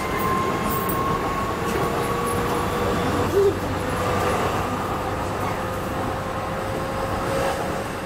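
A DLR B07 stock light-rail car running at speed, heard from inside. Steady rumble from the wheels and track under a motor whine that rises slightly in pitch, with one brief louder sound a little past three seconds in.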